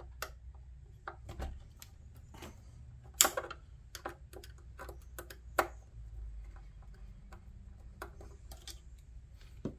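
Small precision screwdriver clicking and ticking against the screws and metal bracket of an interface card on a patient monitor's rear panel, as the card's fasteners are worked loose. Irregular light ticks, with a sharper click about 3 s in and another about halfway.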